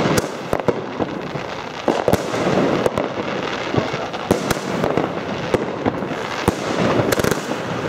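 Zena Event 3 consumer fireworks cake firing: a dozen or so sharp bangs at irregular intervals, about one every half second, from shots launching and bursting, over a continuous crackling hiss.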